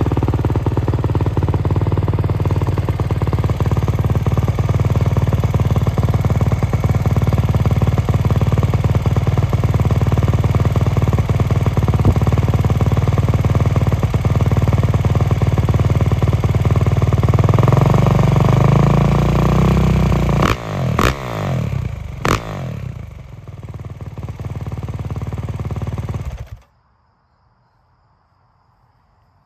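Kawasaki KX450 single-cylinder four-stroke motocross engine through a Pro Circuit Ti-6 titanium exhaust, idling steadily, then revved up and blipped sharply three times, each blip falling back in pitch. It settles and then cuts off suddenly near the end, leaving near silence.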